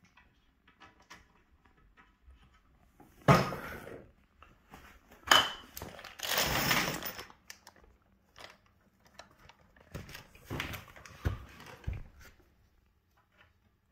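Baby cot parts being handled: several sharp knocks as panels and rails bump together or are set down, the loudest about three and five seconds in, with a longer rustling scrape between them and another run of knocks near the end.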